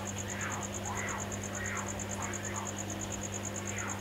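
Insect chirping steadily at a high pitch, about five even pulses a second, over a low electrical hum.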